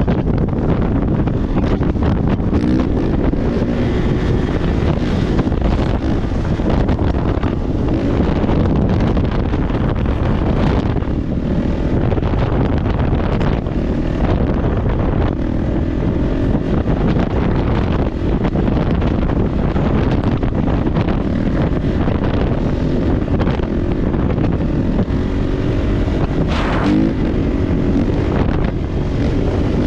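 Kawasaki KX450 dirt bike's single-cylinder four-stroke engine running under throttle while riding, its pitch rising and falling as the throttle is opened and rolled off, with heavy wind buffeting on the microphone.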